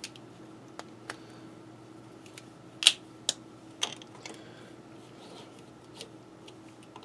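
A few sharp, irregular clicks and taps of hands handling parts on a benchtop mini milling machine's table, the loudest about three seconds in, over a faint steady hum.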